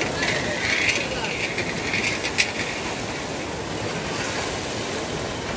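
Steady rush of flowing water, with a sharp click about two and a half seconds in.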